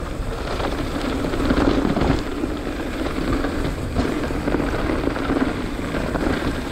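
Mountain bike descending a dirt singletrack at speed: wind buffeting the camera's microphone, with tyre rumble over the dirt and scattered rattles and clicks from the bike.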